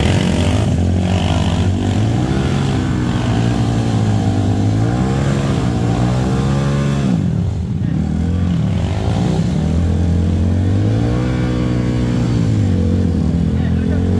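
Yamaha WR155 trail bike's single-cylinder four-stroke engine under load on a dirt trail, its pitch rising and falling over and over as the throttle opens and closes. About halfway through the pitch drops low, then climbs again.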